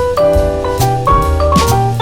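Background music: an upbeat jazzy tune with piano or vibraphone melody over bass and drums.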